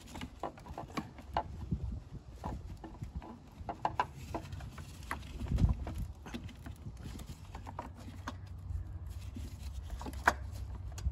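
Irregular small clicks and knocks of metal and plastic as a replacement high pressure fuel pump is handled and wiggled into its mount on the engine. A dull thump comes about halfway through and a sharp click near the end, over a low steady hum.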